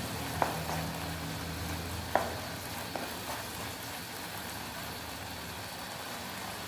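Tomato and onion masala sizzling in a nonstick frying pan as a wooden spatula stirs it, with a few sharp taps of the spatula on the pan, the loudest about two seconds in. Only the steady sizzle is left over the last few seconds.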